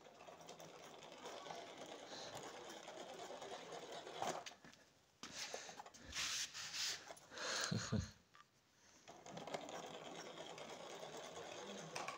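Small electric (dynamo) motor of a homemade cardboard remote-control toy car whirring steadily as the car drives. Louder bursts of noise break in about four to eight seconds in.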